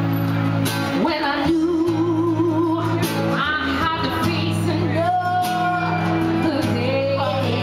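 A woman singing into a microphone, with long held notes, over guitar and violin accompaniment.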